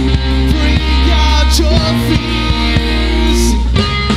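Rock band playing live: electric guitars, bass guitar and drums, heard straight from the mixing desk, with a change of chord a little before the end.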